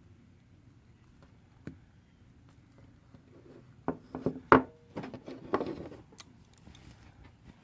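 Thin craft wire being worked and snipped with wire cutters: a few light clicks, then a cluster of handling noises with one sharp snip about four and a half seconds in.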